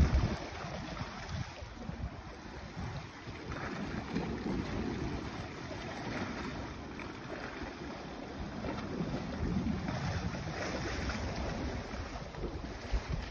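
Wind buffeting the microphone in uneven gusts, over the wash of sea water, with a louder buffet right at the start.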